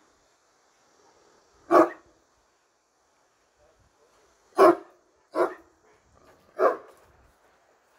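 A large dog of the kind called a Turkish Great Dane barking: four loud single barks, one about two seconds in, then three closer together in the second half.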